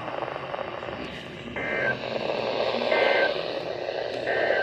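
Weather radio hissing, with three short two-tone data bursts about a second and a half apart. This is the EAS/SAME end-of-message code that closes the severe thunderstorm warning.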